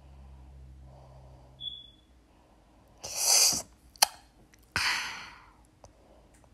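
Two short, hissing, breathy bursts from a person, about a second and a half apart, with a sharp click between them.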